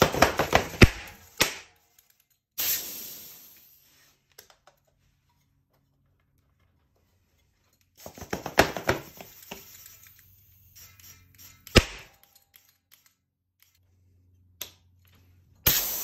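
Compressed air blasting from a compressor hose into tubeless bicycle tyres through the valve, in several separate bursts of hiss and rattle, with sharp cracks as the tyre beads snap onto the rims; the loudest single crack comes about three-quarters of the way through.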